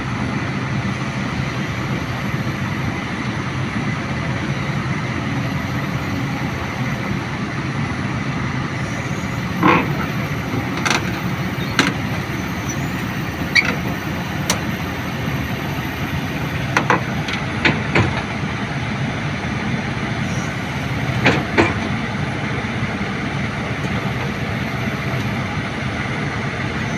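Heavy diesel engine running steadily, with a scattering of sharp clanks and knocks from about ten seconds in until about twenty-two seconds in.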